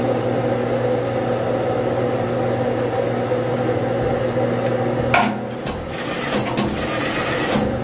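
Juki industrial sewing machine with a newly fitted motor running on a test run, a steady electric hum. About five seconds in the hum changes sharply with a click, followed by light clatter and fabric rustling.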